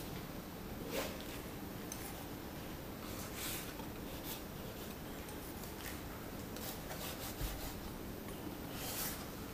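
Paintbrush working on watercolour paper: a handful of short, scratchy rubbing strokes spread through, over a steady low room hum.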